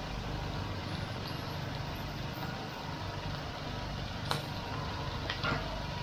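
A steady low rumble, like traffic or a busy street, with a few sharp clinks about four and five and a half seconds in.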